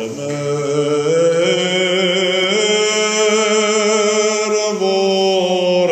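Armenian sacred chanting: voices holding long, drawn-out sung notes with a slight vibrato, moving to a new pitch every second or two.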